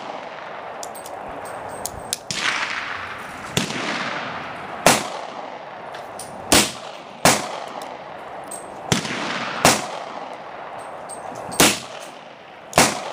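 A string of gunshots, about eight sharp cracks at irregular gaps of one to two seconds, each trailing off in echo, with a few fainter shots between: an M1895 Nagant revolver being fired, with other guns going off on the range.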